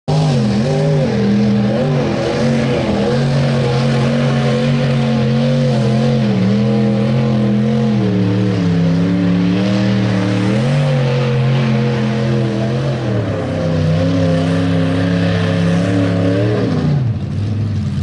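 Engine of a lifted 1950s Ford pickup revving hard as it powers through deep mud, its pitch rising and falling several times and settling lower about two-thirds of the way through. Under it, the tyres churn and sling mud.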